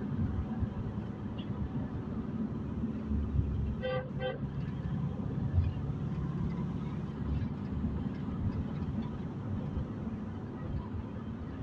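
Steady low road and engine rumble inside a moving car's cabin, with two short horn toots about four seconds in.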